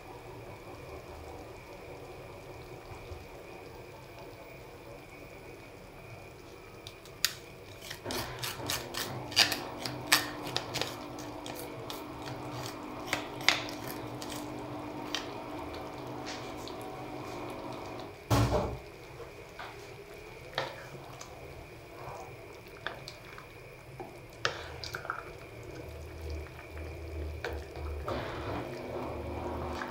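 Soup simmering in a pot, with a steady bubbling underneath. From about a quarter of the way in, a wooden spoon taps and scrapes against a plastic colander as leaves are tipped into the pot, and there is one louder knock just past halfway. Near the end the soup is stirred with a few light taps.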